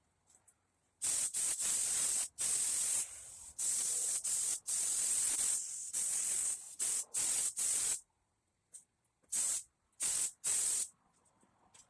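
Paint spray hissing, sprayed in a long series of trigger pulls with short breaks, then a few short bursts near the end.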